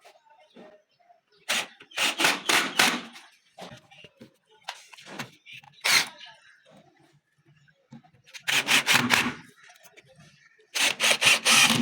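Wood being worked by hand: three short bursts of quick rubbing, rasping strokes, with a single sharp knock about halfway through.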